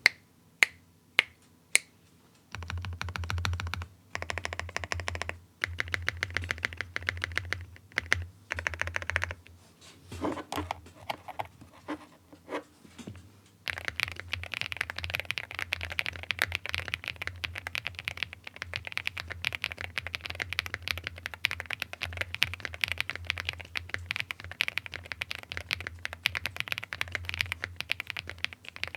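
Zoom75 mechanical keyboard with lubed Kinetic Labs Husky linear switches, foam-filled and tape-modded, being typed on. A few single keystrokes come first, then short bursts of fast typing, and from about halfway on steady fast typing.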